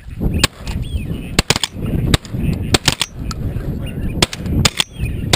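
A volley of shotgun fire at flying ducks: about a dozen sharp shots over five seconds, some in quick pairs and triples as several guns fire at once.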